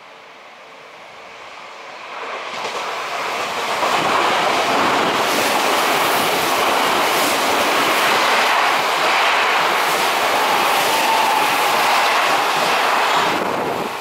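Odakyu electric commuter train passing close by at speed: wheels on rail build to a loud rumble with a regular clacking over the rail joints, then drop off sharply as the last car goes by near the end.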